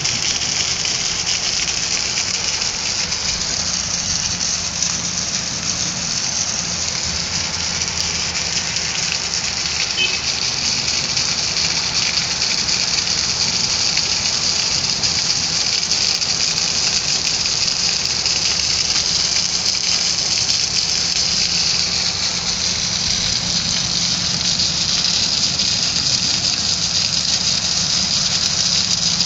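Heavy rain falling in a steady, unbroken rush, with a faint low hum underneath.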